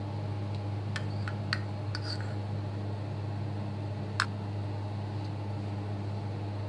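A steady low hum under a light hiss, with a few faint clicks between one and two and a half seconds in and a sharper click about four seconds in.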